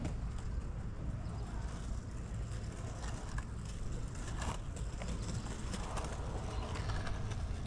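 Wind rumbling on the microphone, with a few faint knocks and scrapes as a surfskate rider kick-pushes and rolls across an asphalt court.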